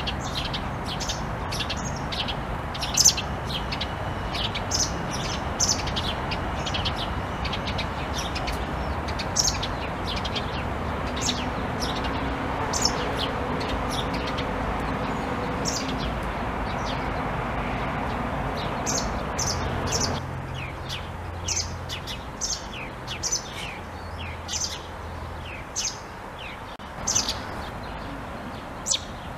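Small songbirds chirping, with many short, high calls repeated throughout, over a steady rushing background noise that drops away suddenly about twenty seconds in.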